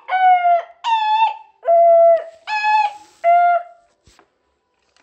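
A child vocalising in short, high held notes that step up and down in pitch, stopping a little before four seconds in.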